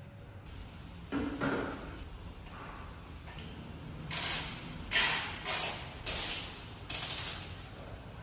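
Wet string mop swishing across a tiled floor, about five quick strokes in a row, with a shorter rustle about a second in.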